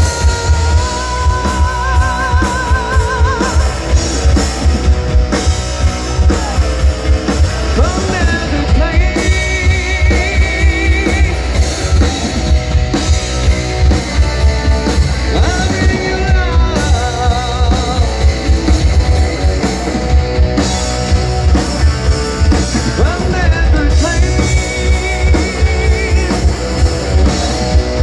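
Rock band playing live: electric guitars, bass guitar and a drum kit keeping a steady beat, with singing and long held notes with vibrato over the top.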